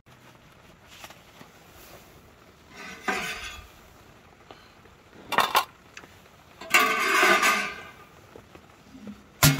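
Metal cooking utensils and cutlery clinking and scraping against pans and plates in a few short bursts, the longest about two-thirds of the way in, with a sharp knock near the end.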